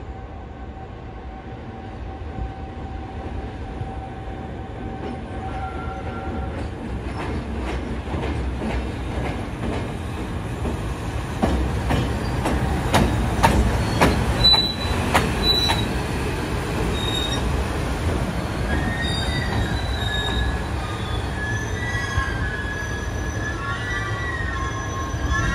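EF210 electric locomotive moving slowly through the tracks while shunting. Its rumble grows as it approaches, then comes a quick run of sharp wheel clicks over rail joints and points around the middle. From about three-quarters of the way through, high-pitched wheels squeal.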